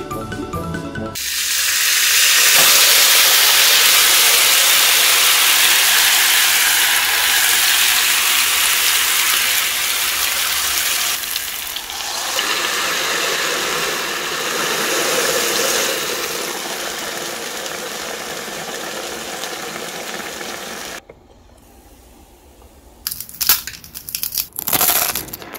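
Wet instant noodles sizzling and steaming between the hot plates of a closed waffle maker: a loud steady hiss that eases off slowly and then stops suddenly. Near the end, the crisp fried noodle waffle crackles and crunches as it is pulled apart by hand.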